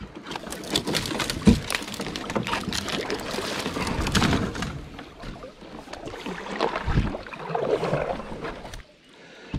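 Kayak being paddled along a shallow creek: water splashing and sloshing against the hull, mixed with many small crackles and knocks and a couple of dull thumps, about one and a half seconds and seven seconds in.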